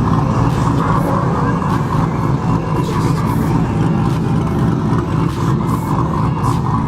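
A motor vehicle's engine running steadily and loudly, close by, with a deep, even rumble that neither revs up nor dies away.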